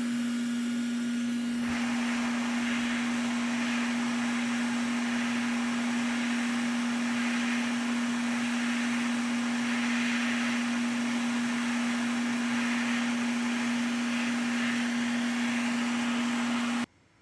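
Hot air rework station blowing on a PS5 motherboard during HDMI port work: a steady airy hiss over a constant hum, the hiss coming in about a second and a half in, both cutting off suddenly near the end.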